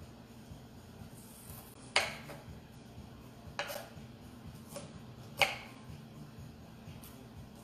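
Kitchen knife chopping a yellow onion on a wooden cutting board: a handful of sharp, unevenly spaced knocks of the blade on the board, the loudest about two seconds in and again about five and a half seconds in.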